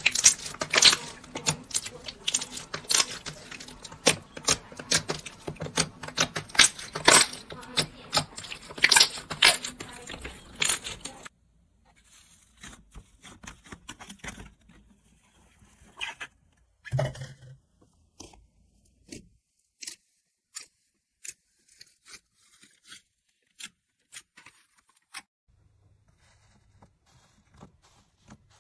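Crunchy slime being squeezed and poked, giving a dense run of crackling clicks and pops. About eleven seconds in, after a cut, it becomes sparse single clicks and pops spaced out, with one heavier squish a little later.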